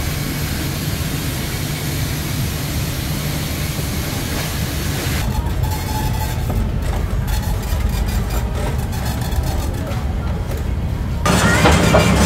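Busy background noise of a street-front shop: a steady low rumble like traffic, with indistinct voices. The sound changes abruptly about five seconds in and again about eleven seconds in, where it turns louder and busier.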